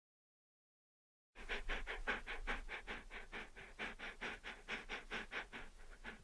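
A small dog panting quickly and rhythmically, about six or seven puffs a second, starting after a second and a half of silence.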